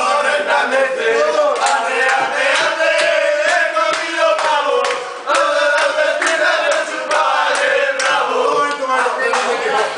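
A group of men singing and chanting a villancico (Spanish Christmas carol) together, with shouts and hand claps.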